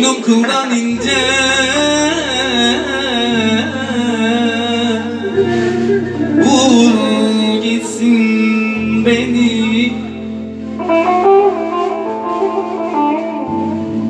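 Live band playing a Turkish arabesk song: singing over plucked string instruments, with a bass line that changes note every few seconds.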